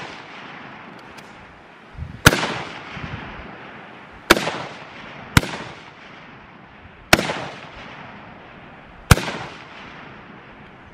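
Service rifle shots on a firing line: five sharp cracks one to two seconds apart, each trailing off in an echo.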